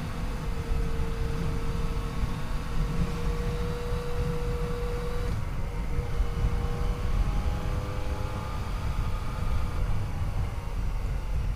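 Yamaha FJ-09's 847 cc inline three-cylinder engine running under way, with a heavy low rumble of wind and road noise. The engine note climbs slowly, then changes about five seconds in and wanders up and down.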